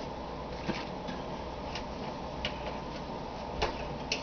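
A slow cooker being handled: a few light, irregular clicks and taps over a steady low room hum, the clearest near the end as its power cord and side handle are taken hold of.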